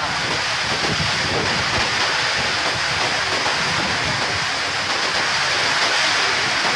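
Storm-swollen creek in flood, its water rushing steadily.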